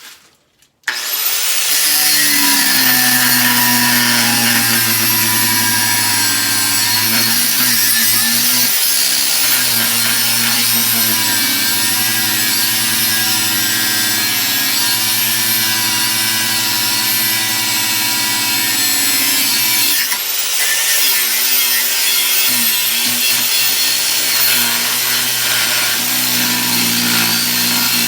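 Electric grinder or cutter running against the steel of a khopesh blade: a steady motor tone under a loud, dense grinding hiss. It starts about a second in and eases briefly about two-thirds of the way through.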